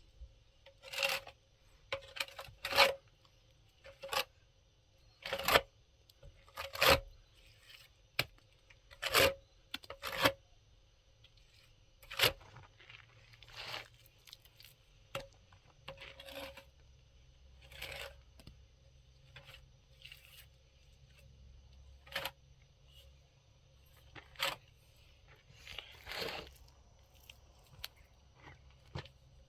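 A series of irregular, short tearing and scraping sounds, a couple a second at first and thinning out after about ten seconds, as hands work some material.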